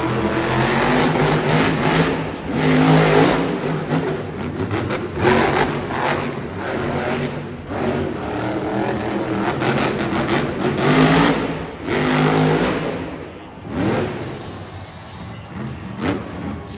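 Grave Digger monster truck's supercharged V8 engine revving hard in repeated surges, the pitch rising and falling as the throttle is worked, with the level dropping off briefly twice in the last few seconds.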